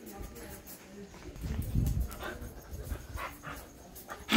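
A dog panting and sniffing close to the microphone as it noses at a person's feet, with a brief louder rustle about a second and a half in.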